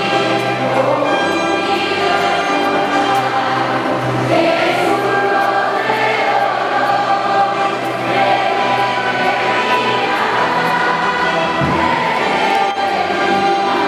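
Choral music: a choir singing long, held notes over instrumental accompaniment.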